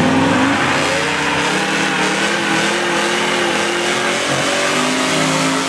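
Mid-1960s Ford Mustang coupe doing a burnout: the engine revs up over the first second or so, then is held at high revs while the rear tyres spin and squeal.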